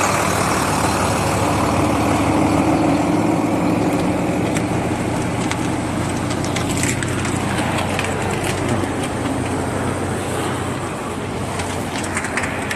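Heavy semi-truck hauling a railway passenger coach: its diesel engine running steadily under the rolling noise of big tyres on a packed-snow road, with scattered sharp clicks.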